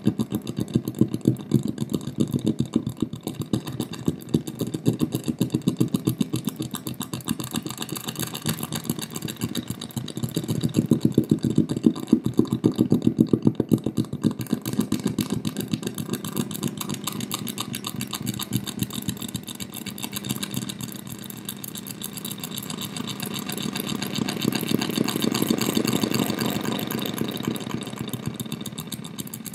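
Fast pulsing electronic buzz from a solar cell picking up flashing strobe lights, fed through distortion and delay pedals and played through an amplifier and speaker. The pulsing swells louder about ten seconds in and again near the end as the strobe is adjusted.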